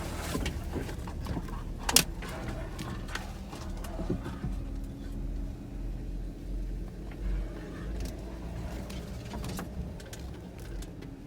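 A 4x4 vehicle running with a low rumble, with scattered knocks and rattles. A sharp knock comes about two seconds in.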